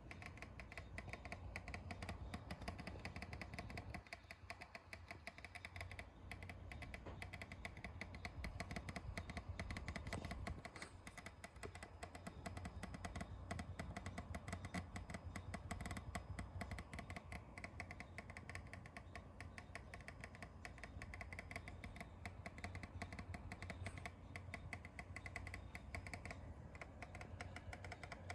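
8TB hard disk drive clattering: a rapid, irregular run of clicks over a steady low hum. It is an abnormal noise that the owner fears means the drive may be about to break.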